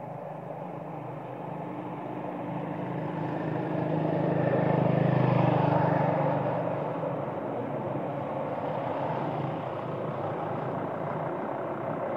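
A motor vehicle's engine passing by on the road, growing louder to a peak about five seconds in and then fading to a steadier hum.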